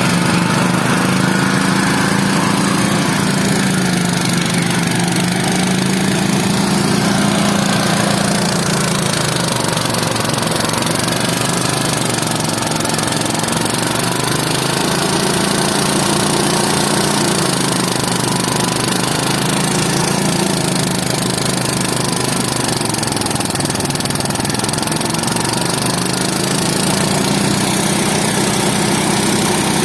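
A small engine running steadily, its pitch sagging and picking up again slowly several times as the load changes.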